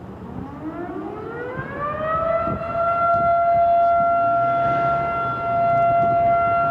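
Federal Signal Model 5 air raid siren winding up: its tone rises steadily for about two seconds, then holds at a steady high pitch.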